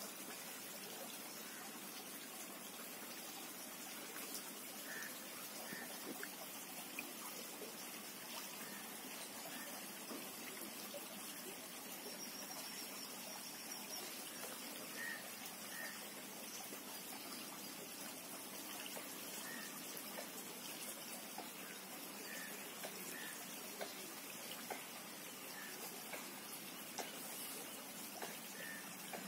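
Steady trickle of running water, with a few faint short bird chirps.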